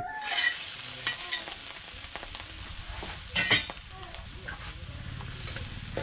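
Food frying and sizzling in a pan while it is stirred, with scattered clicks of the utensil against the pan and one louder knock about three and a half seconds in.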